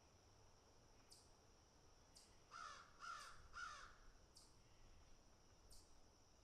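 Crow cawing three times in quick succession, about two and a half seconds in. Faint, short high chirps repeat roughly once a second throughout.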